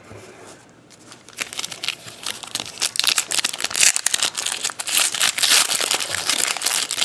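A foil trading-card pack wrapper crinkling as it is handled and torn open: dense crackling that builds from about a second in and stops near the end.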